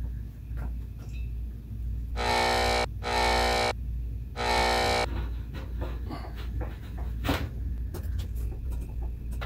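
Three short, harsh electronic buzzes like the buzzer of the game Operation, the first two back to back about two seconds in and the third about a second later. After them come light clicks and knocks as the mirror cell is fitted into the telescope tube, over a low steady hum.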